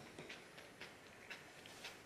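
Faint, scattered light clicks of wooden chopsticks being settled onto a chopstick rest on a table.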